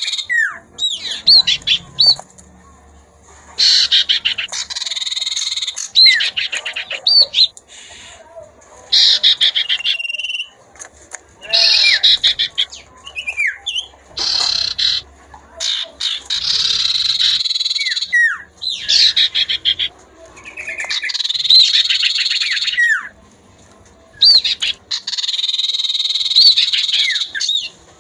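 Common ioras (sirtu/cipoh) calling back and forth: clear whistled notes that slide up and down, alternating with harsh buzzing chatters about a second or two long, the chatter being the female's call. The two kinds of call trade off a dozen or so times.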